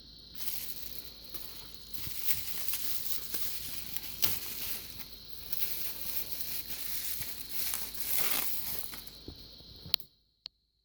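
Knife packaging being unwrapped by hand: a crinkling, tearing rustle with a few sharp clicks, which stops abruptly near the end.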